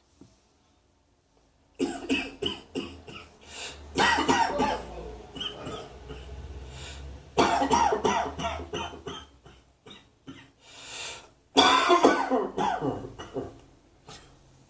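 A person coughing in four fits of quick, sharp coughs, the first starting about two seconds in, with short pauses between the fits.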